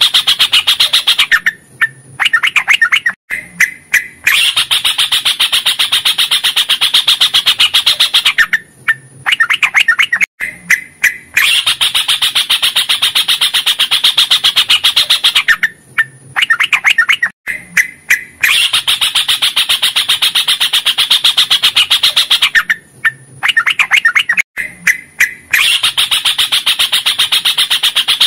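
Yellow-vented bulbul (trucukan) singing its long rolling song: phrases of very rapid chattering notes, each several seconds long, broken by short pauses with a few single notes.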